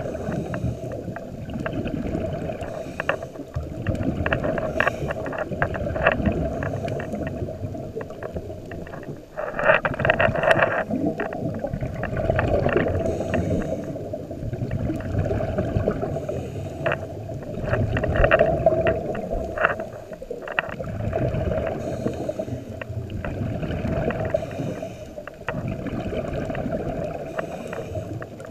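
Scuba diver breathing through a regulator, heard muffled through an underwater camera housing: slow cycles of inhaling and bubbling exhalation every few seconds, the loudest bubbling surge about ten seconds in.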